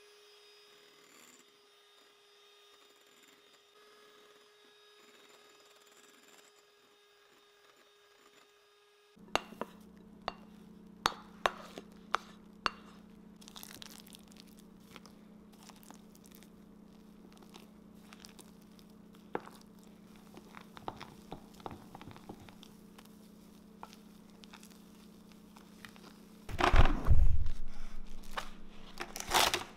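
Electric hand mixer whipping egg whites in a glass bowl, a quiet steady motor whine. Then a run of sharp clicks and soft scrapes as a spatula folds the meringue into mashed sweet potato. Near the end, the loudest sound: plastic wrap pulled off the roll and crinkled over the bowl.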